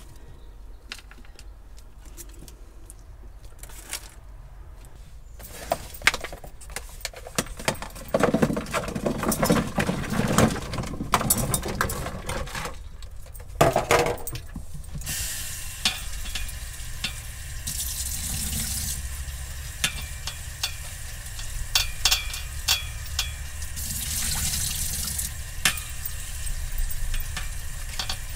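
Vegetable florets handled with light knocks and clatter, then from about halfway a kitchen tap running steadily into a stainless saucepan as cauliflower florets are rinsed in the sink.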